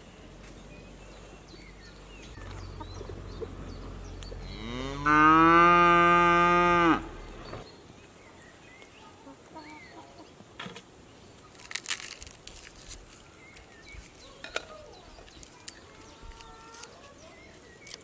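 A cow mooing once: a single long call of about two and a half seconds, about five seconds in, rising in pitch and then held level.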